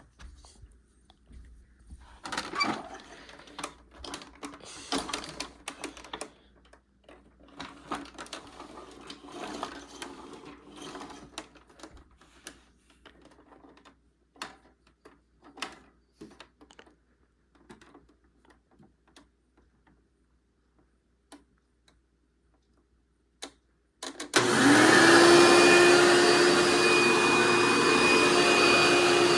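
Clicks and clattering handling sounds, then about 24 seconds in a 2000 Hoover Runabout Ultra caddy vacuum switches on: its motor spins up in a quick rising whine and settles into a steady loud run.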